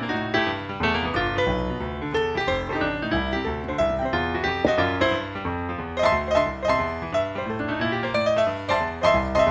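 Background music led by piano, a steady stream of notes.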